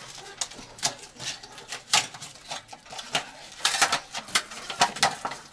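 Irregular light metallic clicks and clatters, including a quick cluster near the end, as a chrome wire shower shelf is handled together with a cordless drill; the drill motor does not run.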